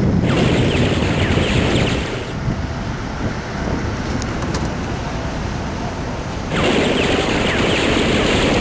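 Outdoor street ambience: a steady rush of road traffic mixed with wind noise on the microphone, dipping a little about two seconds in and growing louder again about six and a half seconds in.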